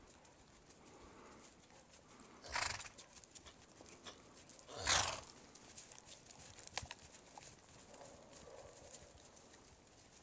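Horse cantering under a rider through snow, with two short, loud, breathy snorts about two and a half seconds apart, the second the louder, and a few faint clicks later on.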